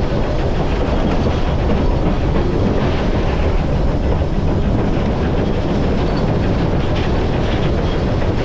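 Loud, steady running noise of the Polson 70 steam locomotive heard from inside its cab as it rolls along the track, wheels on rail and the engine's rumble and rattle.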